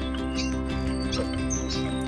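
Background music of steady held tones, with a few short bird chirps over it.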